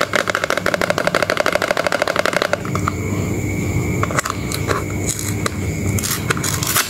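A cardboard soap box being handled and opened. It starts with a fast run of crackling for about two and a half seconds, then goes on as softer rustling with a few light taps.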